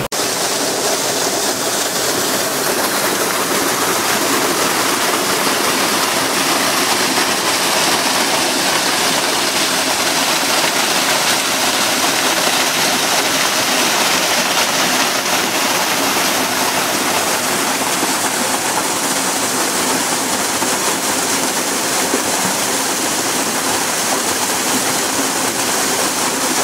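Steady, even rushing noise, like running water, holding at the same level throughout.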